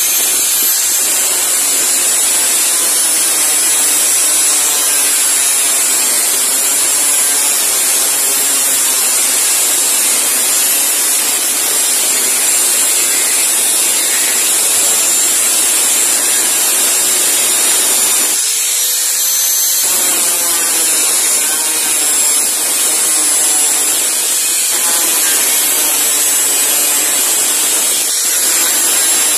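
Angle grinder with a thin cutting disc cutting through the steel of a sugarcane machete blade: a loud, steady high whine with the hiss of the cut. About two-thirds through, the cutting noise drops for a second or so while the motor keeps whining, then the cut picks up again.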